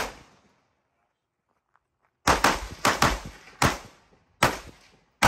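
Rifle shots fired in quick succession. After about two seconds of quiet, six sharp reports come in roughly two seconds: two fast pairs, then two single shots, with one more right at the end.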